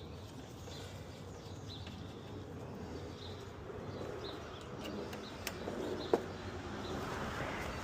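Small birds chirping at intervals over a low background hiss, with a single sharp click about six seconds in.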